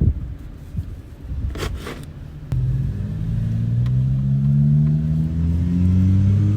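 Honda CBR1000RR inline-four engine starting about two and a half seconds in, after a few handling scrapes, and running with a steady note that slowly rises in pitch.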